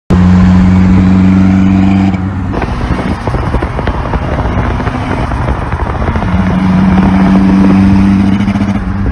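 Mitsubishi Eclipse's turbocharged 4G63 four-cylinder engine running under way. It holds a steady drone for about two seconds, turns rougher and noisier, then drones steadily again near the end.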